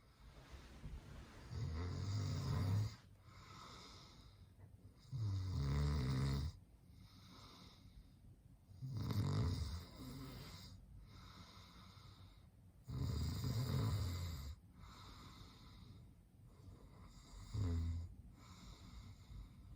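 A man snoring: five deep snores, roughly one every four seconds, the last one shorter, with quieter breathing between them.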